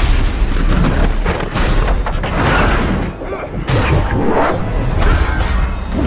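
Action-film battle soundtrack: repeated heavy booms and clashing impacts of a trident fight over loud dramatic music.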